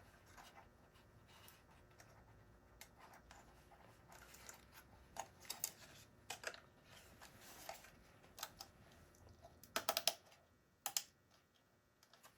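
Small plastic parts of an RC scale helicopter being handled and pressed into place: scattered light clicks and taps, with a quick run of louder clicks about ten seconds in and one more about a second later.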